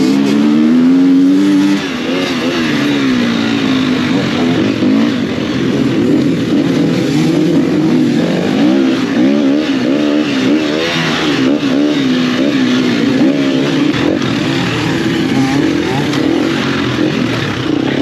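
Enduro dirt bike engine running and revving, its pitch rising and falling again and again with the throttle.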